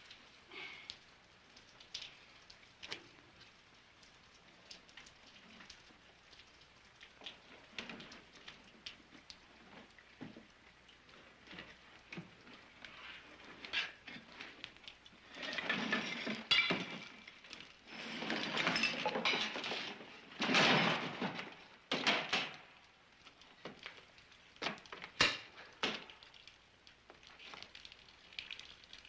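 Earthquake collapse: falling debris and breaking objects crashing and clattering. Scattered knocks and cracks build to several loud crashes around the middle, followed by a few more sharp knocks.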